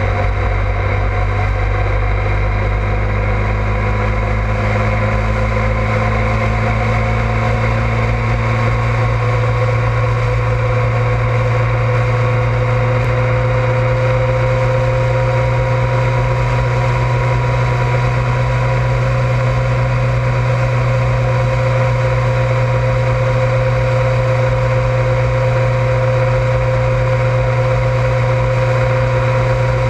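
Honda ST1100 Pan European's V4 engine running steadily at cruising speed, its hum creeping slightly up in pitch as the bike gently gains speed, over steady road and wind noise.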